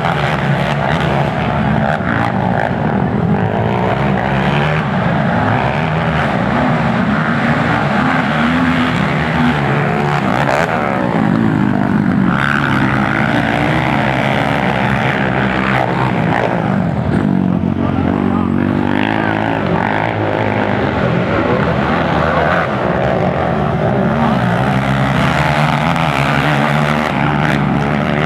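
Several racing quad (ATV) engines revving hard together as the pack races around a dirt motocross track; their pitch keeps rising and falling as the riders accelerate, shift and back off for turns and jumps.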